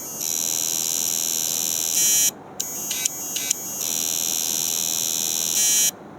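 Hard disk drive with a damaged read/write head jammed inside, running with a high-pitched whine. The whine swells and cuts off sharply about two seconds in, a few ticks follow, and then it starts again, swells and cuts off near the end, over and over. This is the drive's motor trying and failing to move the stuck head, the ticking that signals a damaged read/write head.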